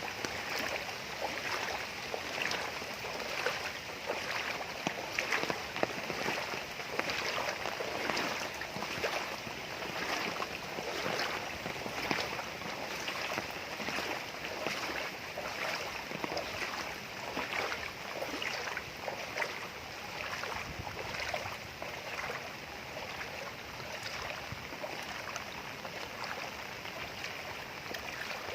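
Floodwater splashing and sloshing in a run of repeated strokes, as from someone wading through shallow water.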